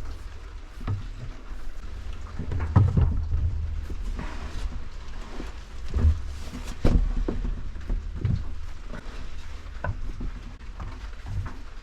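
Pieces of wet walnut being handled and set down, with scattered knocks and thuds, the loudest about three, six and seven seconds in, over a steady low rumble.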